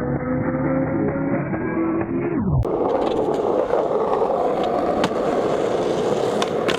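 Muffled music that slows to a stop with a falling pitch, like a tape stop, about two and a half seconds in. Skateboard wheels then roll on pavement with a steady rumble and a few sharp clicks from the board.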